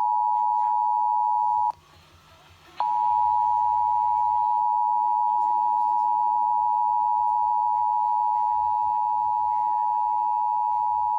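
Emergency Alert System two-tone attention signal: two steady tones sounding together just below 1 kHz. It cuts out for about a second near the start, then starts again and runs on until it stops at the end.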